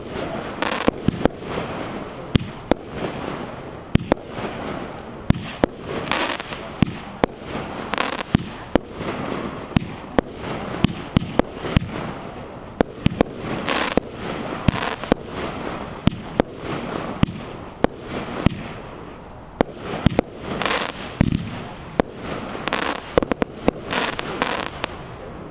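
Skycrafter Theatre of Dreams firework barrage firing: a steady run of sharp bangs, about one or two a second, as shots launch and burst, with a hiss filling the gaps between them.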